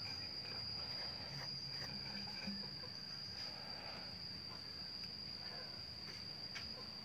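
A steady, unbroken high-pitched insect trill, with a few faint clicks and knocks under it.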